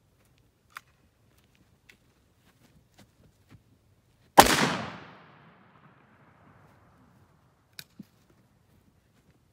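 A single loud gunshot about four and a half seconds in, its report dying away over a second or so. A few faint short clicks come before and after it, two close together near the end.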